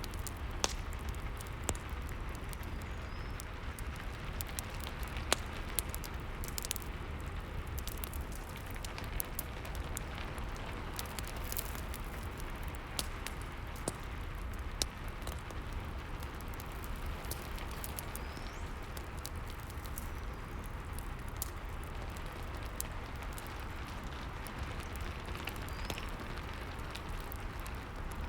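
Rain and fireplace ambience: a steady hiss of rain under a wood fire crackling, with many small sharp pops scattered throughout.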